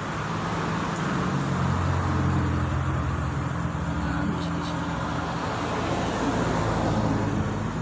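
A motor vehicle engine running close by: a low, steady hum that swells about a second in and eases off near the end, over background traffic noise.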